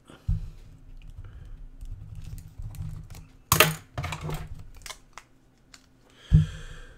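Typing on a computer keyboard: irregular key clicks with a louder clack about three and a half seconds in. A short breath comes near the end.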